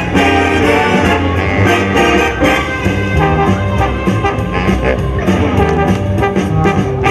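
Jazzy music with brass instruments over a steady beat, playing continuously.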